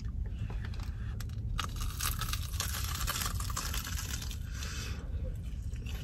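Crisp crunching and crackling of biting and chewing into a fried, breaded corn dog, a rapid patter of small cracks that thins out near the end, over a low steady hum.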